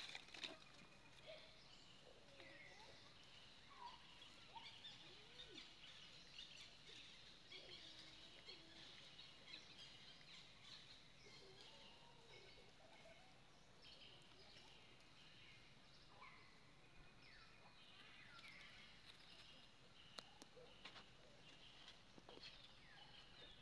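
Near silence: faint outdoor ambience with scattered, distant bird chirps.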